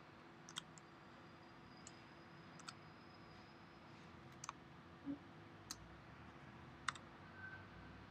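Faint, scattered clicks of a computer mouse, about eight at uneven intervals, with one soft thump about five seconds in, over quiet room tone.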